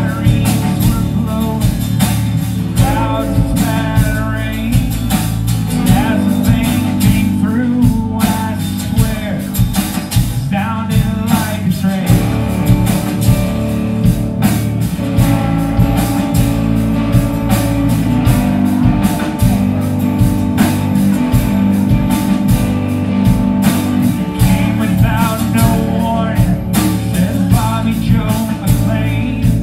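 Live Southern-rock band playing through a club PA: several electric guitars, bass guitar and drums with a steady beat, with a man singing over them.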